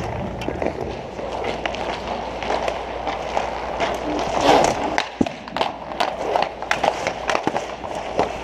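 Inline hockey play close to the goal: inline skate wheels rolling on plastic sport-court tiles, with many sharp clacks of sticks and puck, coming thickest in the second half.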